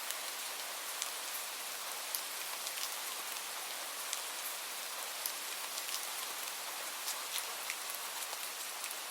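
Light rain falling steadily: an even hiss with individual drops ticking sharply here and there.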